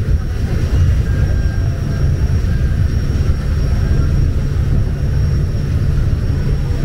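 Ferry's engine running under way, a steady low rumble.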